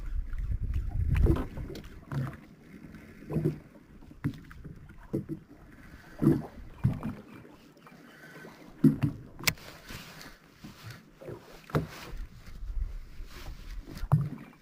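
Water slapping against the hull of a small boat at sea, in irregular thumps, with a low wind rumble on the microphone in the first couple of seconds and a few sharp knocks.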